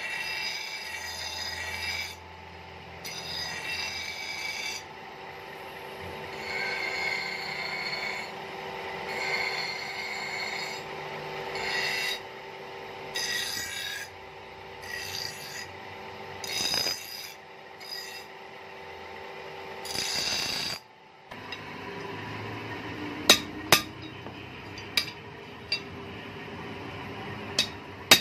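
Steel knife blade pressed against a spinning grinding wheel in repeated passes of a second or two each, the metal ringing as it grinds over the steady hum of the running wheel. After a short break about 21 seconds in, a few sharp metallic taps of a hammer on the blade over an anvil.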